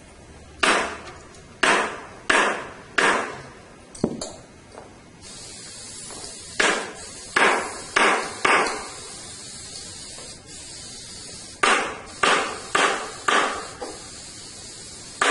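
Staple gun firing staples through the cloth into pool table rails: sharp snaps that each ring on briefly, in three runs of about four shots roughly two-thirds of a second apart, with pauses between the runs.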